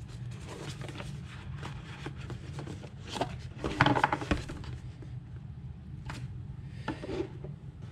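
Cardboard boxes being lifted out of a packaging tray and set down on a wooden table: light scuffs and knocks of card, the loudest about four seconds in, over a steady low hum.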